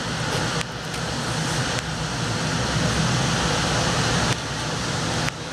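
Cabin noise inside an electric DART light rail train pulling out of the station: a steady rumble and hiss of the car running on the track.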